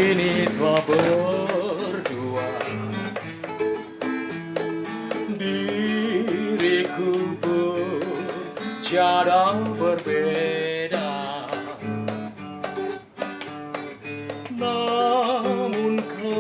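Acoustic guitar strummed as the intro to a song, with a wavering, sliding melody line over the chords.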